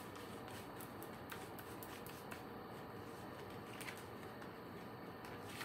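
Tarot cards being handled: faint rustling with a few light clicks over a quiet room hiss.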